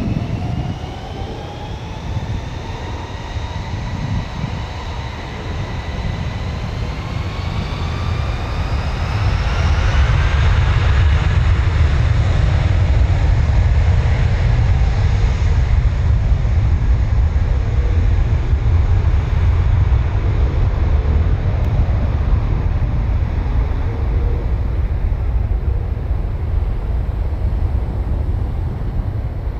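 Jet engines of an Airbus A320 spooling up to takeoff thrust: a whine that rises in pitch over the first ten seconds or so, then a loud steady low rumble as the airliner rolls down the runway on its takeoff run.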